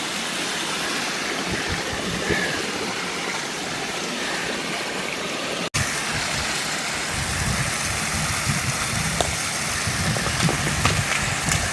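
Creek water running, a steady rushing hiss. After a brief dropout about halfway through, a low, uneven rumble joins it.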